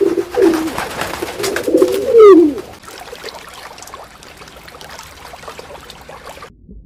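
A bird's low calls, gliding up and down in pitch over the first two and a half seconds and loudest just before they stop. Faint background noise follows until the sound cuts off suddenly about six and a half seconds in.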